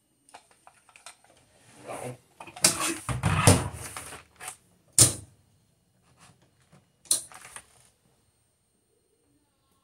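Ribbon cassette of a Videojet DataFlex Plus 6420 thermal transfer printer being unlatched and pulled off by hand, with a cluster of plastic-and-metal clicks and clatter about two to four seconds in. A single sharp click follows around five seconds, and a couple more clicks near seven seconds.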